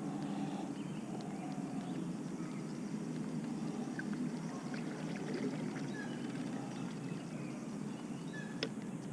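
A small boat motor running steadily with a low hum, with a few faint bird chirps over it and a single sharp click near the end.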